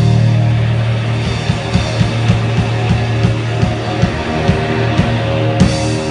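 Live rock band playing loud: distorted electric guitar chords ring over a held low bass note while single drum hits come further and further apart. Another hard hit lands about five and a half seconds in.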